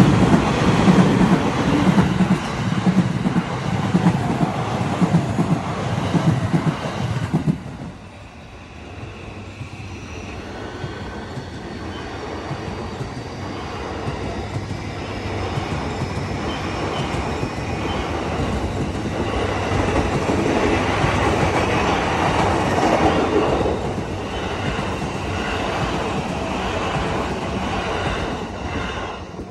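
JR E235 and 209 series electric commuter trains passing over a level crossing. Wheels and cars clatter loudly, and the sound cuts off abruptly about seven seconds in. A second train then approaches, growing steadily louder as it passes, with the sound easing slightly near the end.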